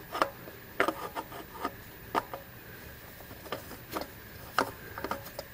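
Scattered light clicks and rubbing, about eight in all, of hands working a new spin-on oil filter onto its threaded mount on a mini excavator's diesel engine.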